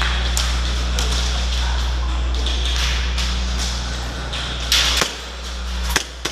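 Steady low hum under a rushing noise, with about half a dozen scattered sharp clicks and knocks from an indoor airsoft game in progress.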